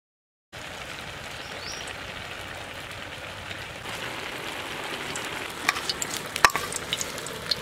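Hot oil hissing steadily in a wok, starting about half a second in, then sharp crackles and clicks from about five and a half seconds in as marinated prawns begin going into the oil to fry.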